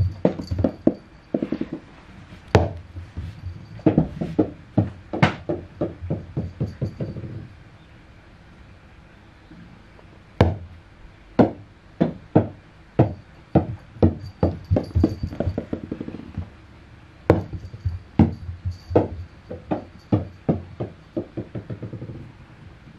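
Small rubber super balls bouncing and rolling on a wooden floor as kittens bat them: runs of sharp clicking knocks that come closer together as each ball settles, with a low rolling rumble under some runs and short pauses between.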